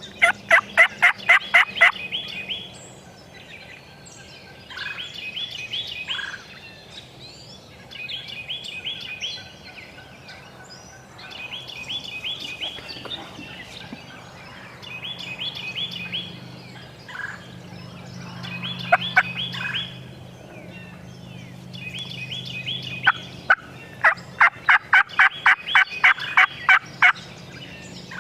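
Wild turkey calls: a loud run of sharp, evenly spaced notes at the start and again near the end, with softer repeated calls in between.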